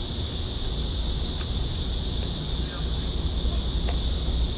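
Steady high-pitched drone of insects, with a low wind rumble on the microphone.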